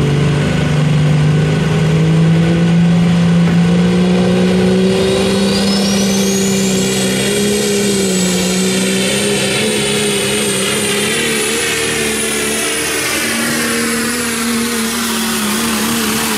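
Super modified four-wheel-drive pulling truck with a Dodge Ram body running under full power as it drags the weight sled. The engine note climbs over the first few seconds. A high whine rises from about five seconds in and then holds steady.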